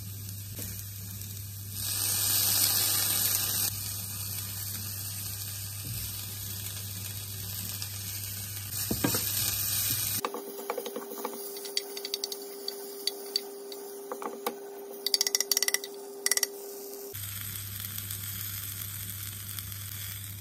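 Stir-fried vegetables sizzling in a small non-stick pan on an induction hob as a wooden spoon stirs them, with a louder burst of sizzling about two seconds in, when the sauce goes in. Midway the spoon knocks and scrapes against the pan in a run of sharp clicks over a steady hum.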